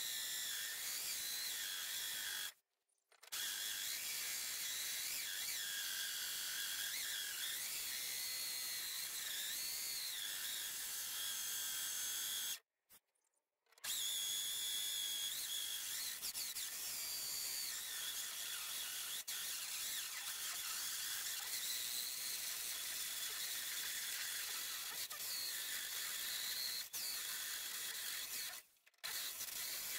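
Electric drill driving a cheap hole saw through the sheet-metal front guard of a ute, a slow cut. The steady motor whine wavers in pitch as the saw bites, with three short breaks.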